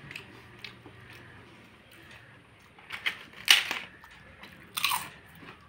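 Hands mixing rice and curry on a banana leaf: faint soft squishes and small clicks, with two short hissing noises about three and a half and five seconds in.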